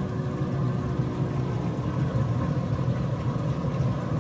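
Pit Boss 1150PS pellet smoker running, a steady low mechanical hum with faint steady whine tones from its draft fan.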